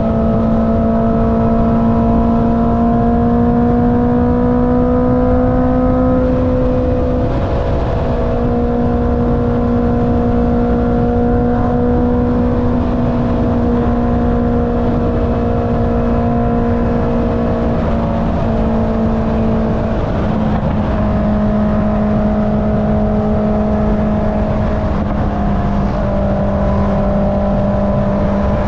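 Honda CB650R's inline-four engine through an Akrapovic exhaust, running at a steady cruising pitch. The pitch creeps up for the first few seconds, then dips briefly about seven seconds in and again about twenty seconds in, with a rush of wind and road noise underneath.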